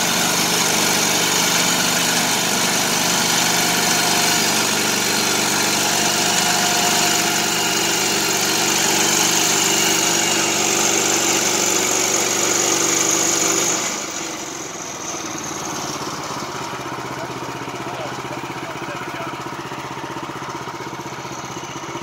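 Small gas engine of a portable band sawmill running steadily at cutting speed as the saw goes through the log. About two-thirds of the way in it drops suddenly to a quieter idle.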